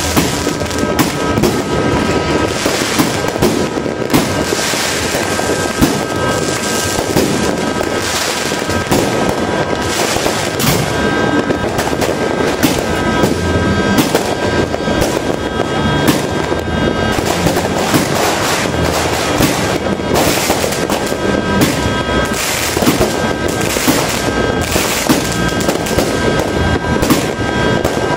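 Fireworks and firecrackers going off in a dense, continuous crackle of countless small bangs with no let-up.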